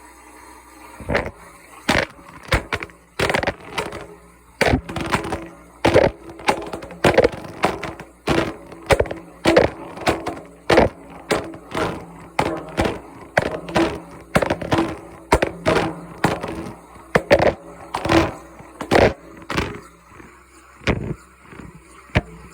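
A cased phone knocking against the inside of a turning washing-machine drum: repeated irregular bangs, about one or two a second, over a faint steady machine hum.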